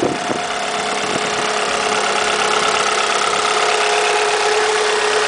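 Alfa Romeo 156's 2.0 JTS four-cylinder petrol engine idling steadily, heard from over the open engine bay, with a couple of light knocks near the start.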